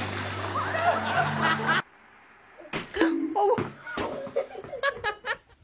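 Music with singing voices, cutting off abruptly about two seconds in; then several sharp smacks and bursts of laughing.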